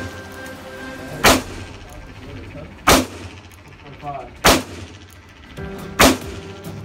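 Four gunshots fired at a steady pace about a second and a half apart in an indoor shooting range, each followed by a short echo.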